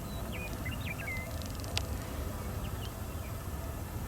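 A small bird chirping, a quick run of short high notes in the first second or so, over a steady low rumble. A single sharp click a little under two seconds in.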